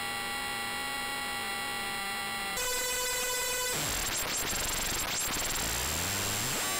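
Eurorack modular synth running two oscillators through a Mystic Circuits Vert used as a downsampling ring modulator, giving a harsh digital buzz made of many steady tones. About two and a half seconds in it switches to a different set of tones, and a second later it turns noisy, with pitches gliding up and down.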